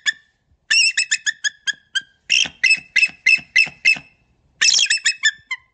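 An animal calling in three bursts, each a quick run of about half a dozen short, sharp, high pitched notes. The bursts are separated by brief pauses, and the last ends about half a second before the end.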